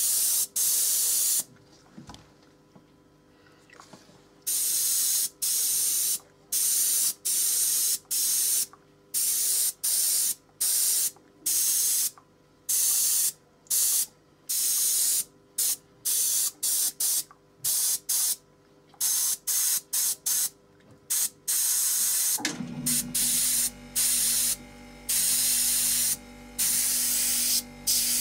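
Airbrush spraying thinned paint in short hissing bursts, switching on and off as the trigger is worked, with a pause of about three seconds near the start. About three-quarters of the way through, a steady low hum sets in under the bursts.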